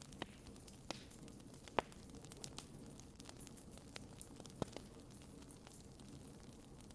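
Wood bonfire crackling: scattered sharp pops and snaps of burning firewood over a faint steady background, the loudest snap about two seconds in.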